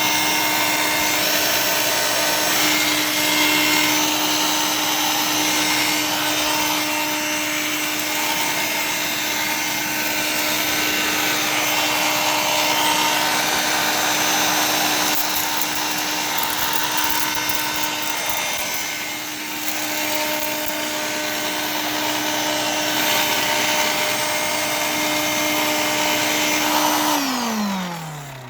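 Dirt Devil Ultra handheld vacuum running steadily, its motor's steady whine over the rush of air through the hose. Near the end it is switched off and the whine falls away as the motor spins down.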